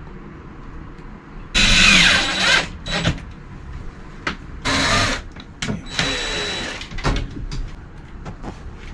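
Power drill running in three short bursts, with clicks and knocks from handling in between.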